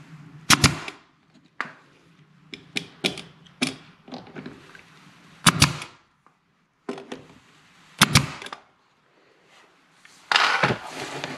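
Brad nailer firing three times, each shot a sharp double crack, about half a second in, near the middle and about eight seconds in, driving brads into baseboard trim. Lighter knocks between the shots, and a rustling scrape near the end.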